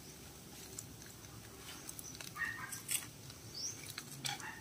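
Faint crackling and rustling of dry twigs and leaves at a small open wood cooking fire, in scattered small clicks. A bird gives a couple of short high chirps about three and a half seconds in.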